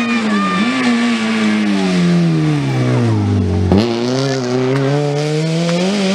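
Rally car engine running hard. The revs fall steadily for about three and a half seconds as it slows for a tight bend, a single sharp crack comes about two-thirds of the way through, and then the revs climb again as it accelerates out of the corner.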